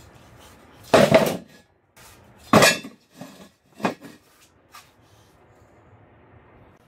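Steel car wheel rims set down on a wooden workbench: two heavy metallic clanks, about a second in and again about two and a half seconds in, then a few lighter knocks as the wheels are shifted into place.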